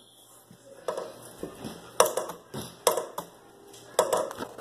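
Plastic action figures knocked together and against the phone in a play fight: a string of sharp clacks and rustling handling noise, the three sharpest knocks about two, three and four seconds in.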